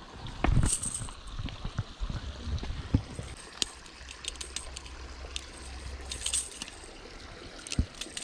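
Scattered light metallic clicks and rattles of fishing pliers and a lure's hooks as the hook is worked free from a small bass's lip, with a handling bump about half a second in and a low steady rumble in the second half.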